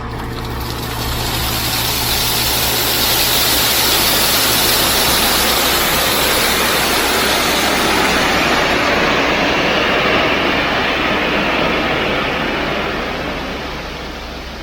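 Dump truck tipping a load of crushed limestone: a loud rush of stone sliding off the bed that builds, holds for several seconds and tapers away near the end, over the truck's diesel engine running.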